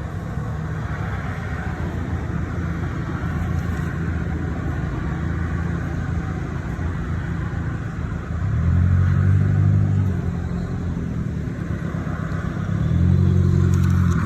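A car engine runs steadily close by, with two louder swells where its pitch rises and falls, about eight and thirteen seconds in.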